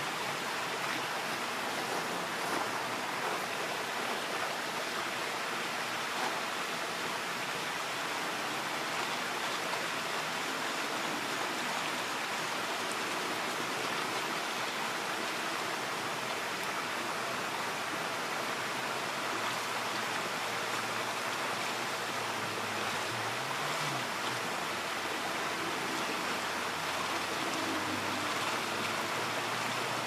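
Shallow freshwater creek running over rocks: a steady, even sound of flowing water.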